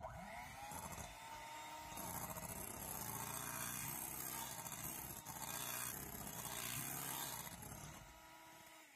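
Electric hand mixer running, its beaters whipping a yolk batter into meringue in a glass bowl. The motor spins up at the start, runs steadily, then winds down near the end.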